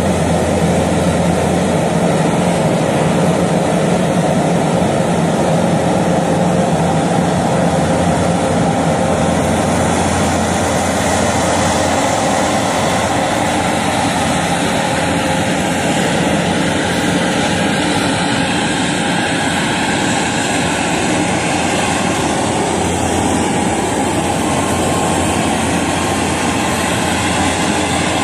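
Skid-steer loader engine running steadily, a constant low hum with noise across the range and no pauses.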